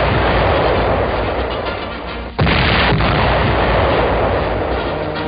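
Heavy explosions from the Little David 36-inch mortar's 2-ton shells bursting. A long rumbling blast is already sounding, then a second sudden blast comes about two and a half seconds in and rumbles on, dying away slowly.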